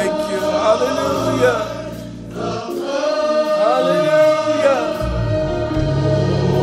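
Gospel choir singing worship music over a steady held note and changing bass notes; the sound dips briefly a little over two seconds in.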